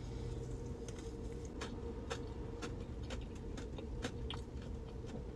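A person chewing a mouthful of soft donut, with faint scattered mouth clicks, over a steady low hum inside a car's cabin.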